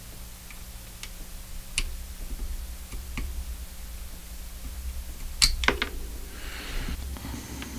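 Small screwdriver tip working under a coin-cell backup battery in its holder on a camera circuit board, prying it out: a few faint scattered ticks, then a cluster of sharper clicks about five and a half seconds in.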